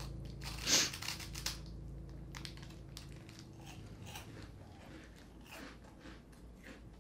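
A bite into a crunchy puffed corn snack stick about a second in, followed by scattered faint crunches of chewing.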